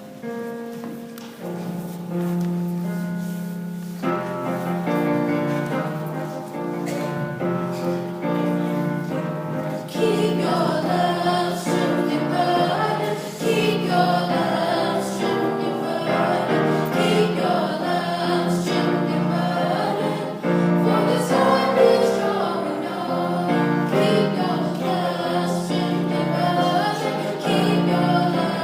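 Gospel-style choir singing over an instrumental accompaniment. The accompaniment plays alone at first, and the voices come in about ten seconds in.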